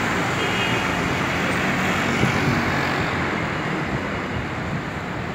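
Road traffic: a car and a light truck pass close by, their engine and tyre noise easing off a little over the last couple of seconds.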